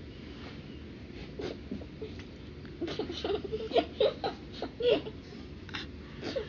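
A young girl's short whimpering, mouth-made noises: a quick string of brief pitched sounds about three to five seconds in, with a few single ones before and after.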